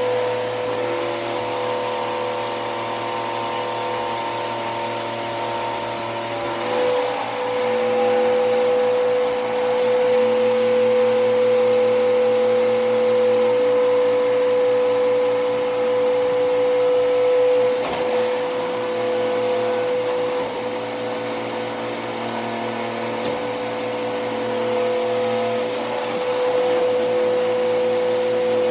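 Hoover vacuum cleaner running steadily: a constant motor whine over a rushing airflow hiss. Its tone shifts slightly about a quarter of the way in, and there is one brief click a little past the middle.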